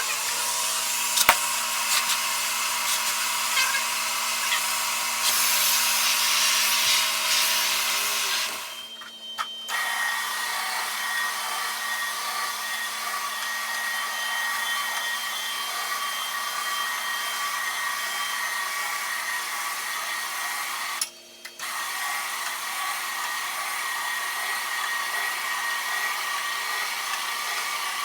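Carpet-cleaning extraction wand pulling air and water through the carpet with a steady hiss over a constant machine hum, cutting out briefly twice.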